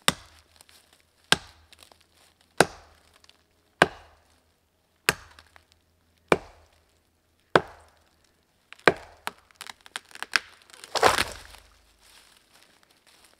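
Condor Pack Golok chopping into a thin standing tree: sharp wooden thwacks evenly spaced about one every second and a quarter, then a few quicker, lighter strikes. About eleven seconds in comes a longer rustling crash as the cut tree falls.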